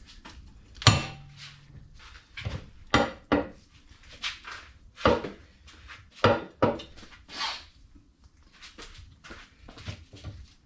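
A bearing separator extractor at work freeing a stuck bearing race from a wheel hub: a string of irregular metal knocks and clunks, some ringing briefly, about a dozen of them.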